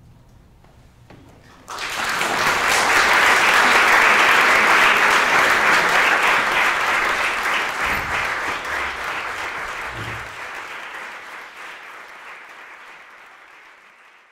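Audience applause that breaks out suddenly after a moment of quiet, swells within a couple of seconds, then slowly dies away.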